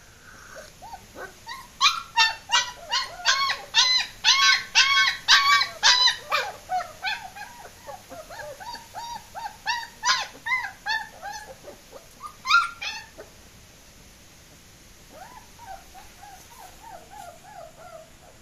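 German shepherd puppies whining and yelping in quick runs of short high cries, about three a second, loudest from about two to seven seconds in, with a second run around ten to thirteen seconds and fainter whimpers near the end.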